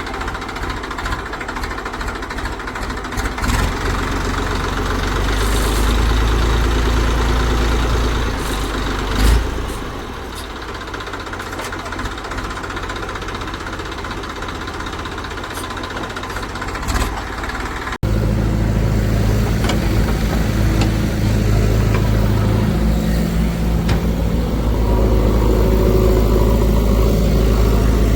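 Diesel engine of heavy earth-moving or farm machinery running steadily, with a single sharp knock about nine seconds in. About halfway through the sound changes abruptly to a steadier, slightly louder engine.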